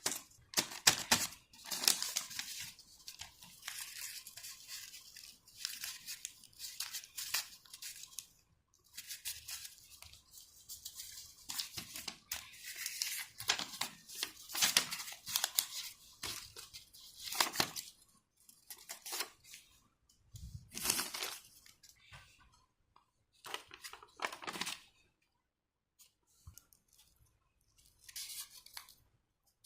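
A blind bag's packaging being torn open and crinkled by hand: irregular crackling and tearing rustles, dense for the first two thirds, then sparser handling with short gaps near the end.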